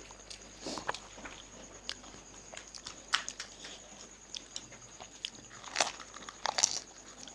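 Chewing and crunching of fuchka (pani puri), crisp hollow puris being bitten and chewed, with scattered crackles and a few louder crunches about three seconds in and near the end.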